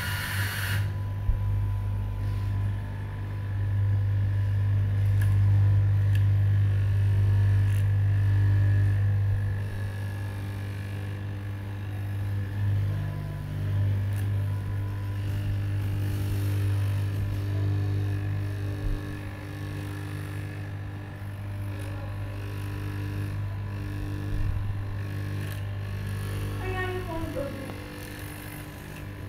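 Electric straight-knife cloth cutting machine running steadily with a low, constant hum while its vertical reciprocating blade cuts through a tall stack of fabric layers.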